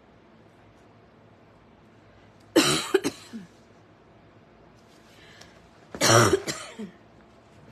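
A woman coughing twice, about three and a half seconds apart, each cough a short harsh burst with a quick follow-up.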